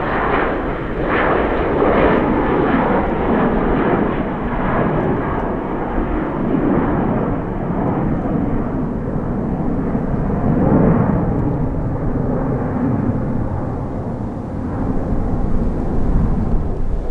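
Jet airliner engines, loud and noisy throughout, with the higher hiss thinning out after the first few seconds.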